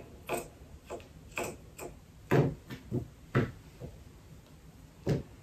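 Scissors snipping through knit fabric in a run of short, sharp snips about every half second, then one louder knock near the end.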